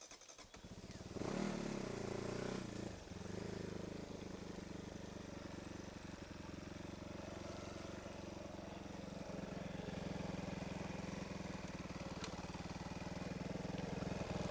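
Off-road motorcycle engine catching about half a second in and revving briefly, then settling to a steady idle.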